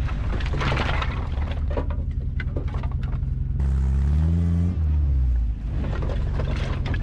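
1981 Ford Courier's four-cylinder engine revving through a glass-pack exhaust, climbing in pitch about four seconds in. A rushing, scraping noise runs under it for the first three seconds or so.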